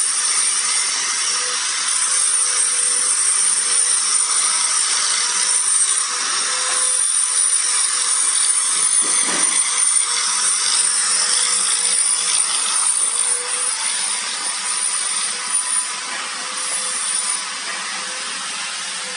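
Steady machine noise in a workshop: a loud, even high-pitched hiss with a faint steady hum under it, easing off a little near the end.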